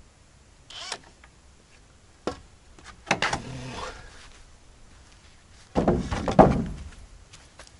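Wooden boards and beams being handled during timber framing: a few separate knocks and stretches of wood scraping on wood, the loudest about six seconds in.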